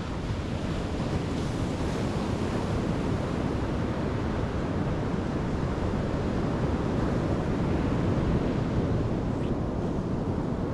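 Steady wash of gentle surf on a beach in a sheltered bay, with wind rumbling on the microphone.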